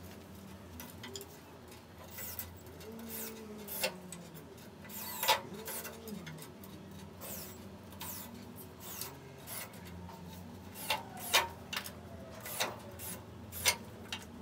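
Cordless drill driving screws into wooden strips on the edge of a pool table's slate bed, its motor whirring in short runs that rise and fall in pitch. Between the runs come scattered sharp clicks and knocks of wood and tools, the loudest about five seconds in and about eleven seconds in.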